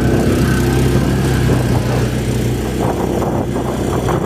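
Off-road vehicle's engine running at a steady speed while it is driven along a dirt trail, with rushing noise over the top.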